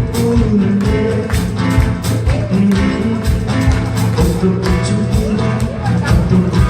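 Korean adult-contemporary (trot-style) song performed live: band or backing-track music with a steady drum beat, guitar and held melody notes.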